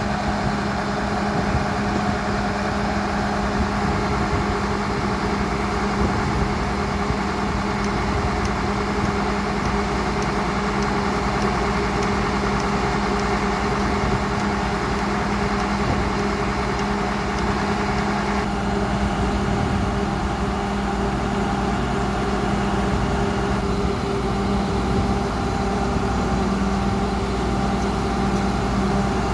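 Engine of a tracked horizontal directional drilling rig running steadily while drilling an underground bore for a water pipe, with a constant low hum.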